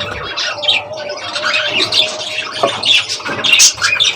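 Small pet parrots in a breeding room, such as budgerigars, cockatiels and lovebirds, chirping and squawking in many short, overlapping calls.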